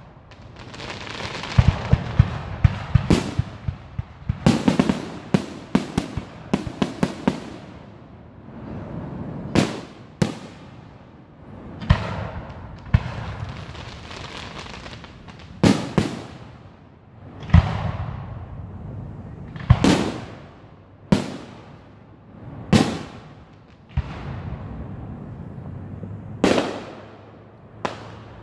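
Aerial fireworks shells bursting: a rapid string of bangs and crackles in the first several seconds, then single booms every two to three seconds, each trailing off in a rolling echo.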